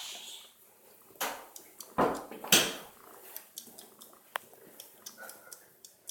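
Young kittens making short sounds, the loudest three about one, two and two and a half seconds in, among small clicks.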